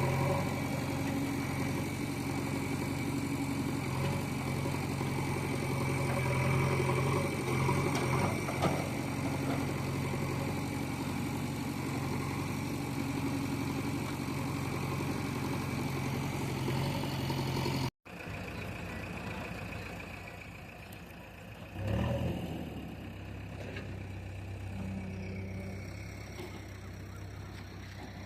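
JCB 3DX backhoe loader's diesel engine running steadily. About two-thirds of the way through there is a cut, after which the engine is quieter, with a single knock a few seconds later.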